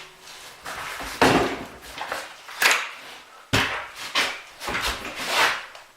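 Hardware being handled against wood: a series of about five sharp knocks and scraping clatters, each fading over about half a second.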